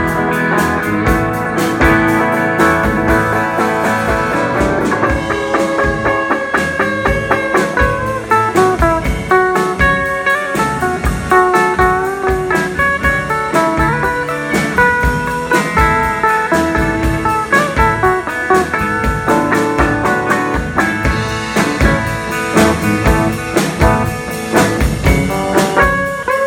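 Live band music: a guitar playing a moving melodic lead over a steady drum-kit beat, in a blues-rock style.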